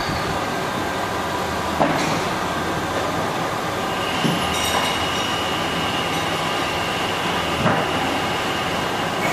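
Steady mechanical running noise with a low hum. A thin high whine joins about four seconds in, and a few short knocks sound about two, four and eight seconds in.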